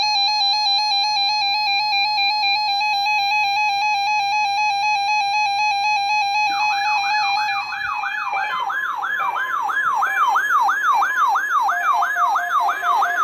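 Emergency Alert System attention signal: the steady, harsh two-tone alert (853 and 960 Hz together) played over radio. About six seconds in, an electronic siren that sweeps rapidly up and down, three or four times a second, takes over.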